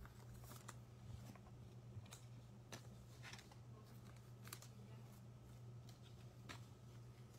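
Faint, scattered clicks and taps of trading cards being handled and laid on a tabletop, over a low steady hum.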